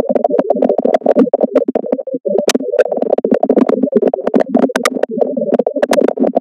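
A burst of scratchy, crackling electronic sound full of sharp clicks, with a brief dropout about two seconds in, cutting off abruptly near the end.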